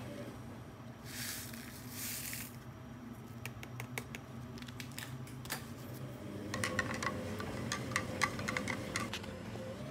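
Instant coffee poured from a sachet into hot water in a plastic blender cup, heard as two brief hisses, then a metal spoon clicking and tapping against the cup as the coffee is stirred, the taps coming thick and fast in the last few seconds. A steady low hum runs underneath.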